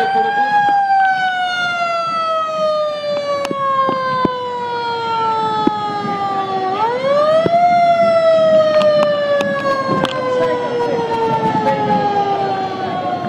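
Siren on a vintage parade truck, winding up quickly and then falling slowly in pitch, twice; the second wind-up comes about seven seconds in.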